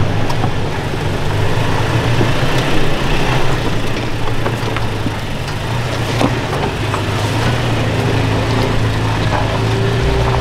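Toyota Tacoma pickup's engine running steadily at low revs as the truck crawls slowly past over rock, with scattered short clicks and crunches from the tyres on rock and gravel.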